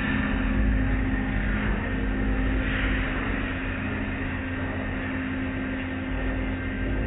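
Automatic car wash heard from inside the car: water spraying and soft-cloth wash strips sweeping across the car, over a steady low hum and rumble.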